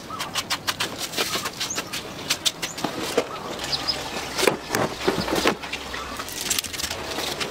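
Scattered sharp clicks and knocks from handling work, with a few short bird chirps in the background.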